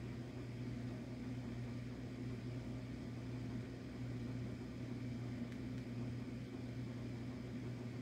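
Steady low electrical hum of a motor or appliance in the room, with a faint hiss under it and no change throughout.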